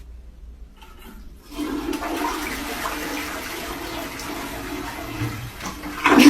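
Rushing water that starts about a second and a half in, with a louder surge near the end.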